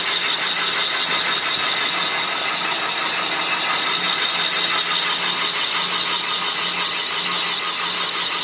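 Van Norman 944S boring bar running steadily as its cutter bores a cylinder of a cast-iron Willys F-head engine block. It makes a steady low hum with a high whine over it.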